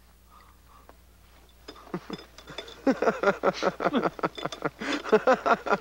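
Men laughing loudly in quick repeated bursts, starting about two seconds in after a quiet start.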